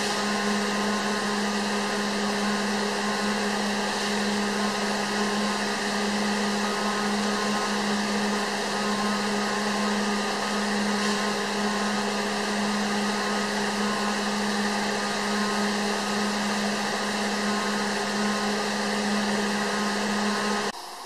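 Steady mechanical hum with a strong low drone over an even hiss, like a motor-driven machine running; it cuts off suddenly just before the end.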